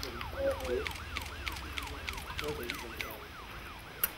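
An emergency-vehicle siren sounding in quick, even rising-and-falling sweeps, about three a second. A single sharp click comes near the end.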